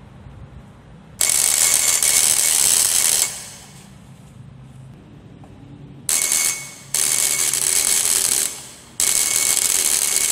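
Homemade electric bell, a hand-wound copper coil driving a striker against an aluminium drink can, buzzing and ringing in four bursts as its push button is pressed and released. Each burst switches on and off abruptly, a rapid buzzing ring with a thin steady tone.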